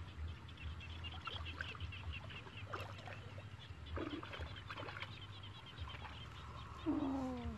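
A high, rapid chirping from the wet field, about six pulses a second, with water splashing now and then as a bamboo plunge-basket fish trap is worked in shallow water. A short falling call sounds near the end.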